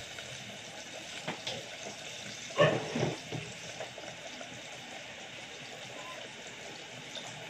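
Saba banana peels deep-frying in a small pot of oil, a steady sizzle, with a short knock about two and a half seconds in.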